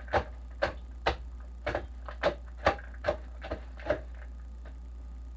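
A utensil knocking against a mixing bowl as banana-bread batter is worked by hand: about nine sharp strokes, roughly two a second, stopping about four seconds in, over a steady low hum.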